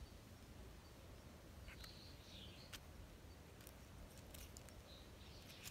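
Near silence, with faint soft ticks of a cat licking its fur at close range and a few faint bird chirps.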